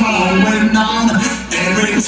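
Dancehall record playing over a sound system, a voice singing over the track.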